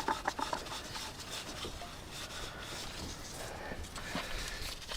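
Faint rubbing and a few light clicks: hands handling the oil filter cartridge and its housing.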